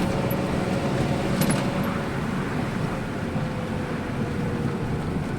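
A road vehicle driving, with steady engine and road noise. A faint tone slowly falls in pitch, and there are two short clicks in the first two seconds.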